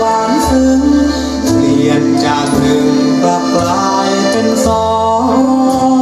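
Music with a singing voice, played loud through a home-built speaker, with a steady bass line underneath.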